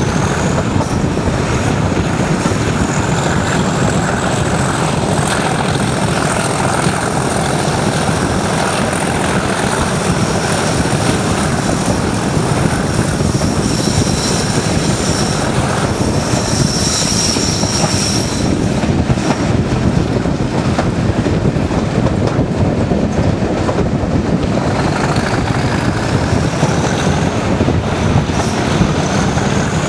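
Class 37 diesel locomotive's English Electric 12CSVT V12 engine working hard under load (thrash) while hauling the train. It is heard from an open carriage window against steady wind rush and wheel-on-rail noise, with a high whistle that rises near the start and again near the end.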